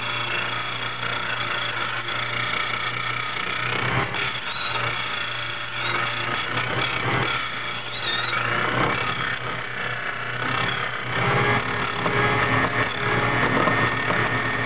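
Foley Belsaw Model 200 key-duplicating machine running: a steady motor hum under the rasp of the rotary cutter grinding a key blank, the cutting noise swelling and easing as the blank is worked along.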